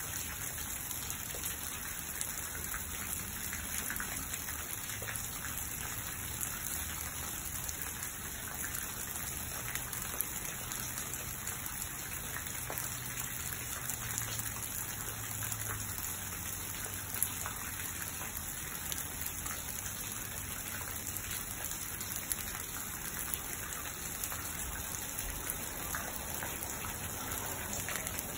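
Steady rain falling on garden shrubs and lawn: an even hiss with the patter of many individual drops.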